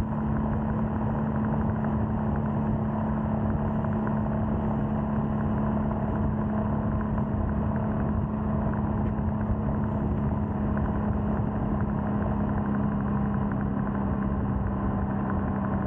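Royal Enfield Scram 411's air-cooled single-cylinder engine running steadily at cruising speed on the open road, its note holding even throughout.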